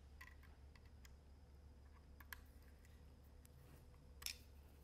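Faint, scattered clicks of an Allen wrench tightening a set screw on a bolt-on AK charging handle, the loudest about four seconds in, over a low steady hum.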